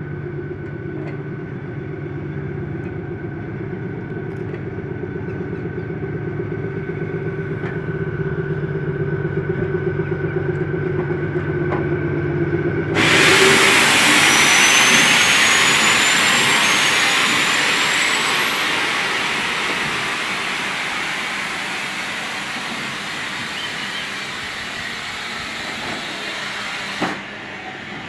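Shunting locomotive running with a steady machine hum. About halfway through, a loud hiss of released compressed air starts suddenly, then slowly fades and cuts off shortly before the end.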